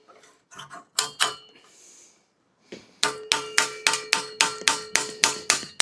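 Hammer blows driving a bent tool against a headset cup to knock it out of a rusty bicycle frame's head tube. A few light taps come first, then about halfway through a steady run of sharp strikes, roughly four a second, with the metal ringing.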